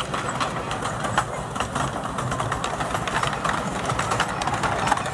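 Miniature steam locomotive running past with its train: a steady low rumble of wheels on track, broken by many sharp clicks and beats.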